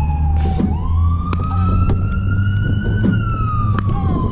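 A wailing siren slides down in pitch, turns upward about a second in, peaks near three seconds and starts falling again. Over it come sharp clicks of a pickleball paddle striking balls.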